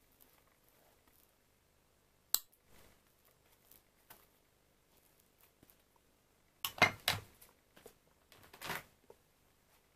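Table knife and butter dish clinking while a bread roll is buttered: one sharp click a little over two seconds in, then two clusters of louder clinks and knocks around seven and just before nine seconds.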